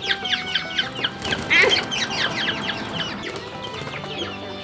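A flock of caged quail chirping: many short, high, downward-sliding calls overlapping, busiest in the first couple of seconds and thinning out toward the end.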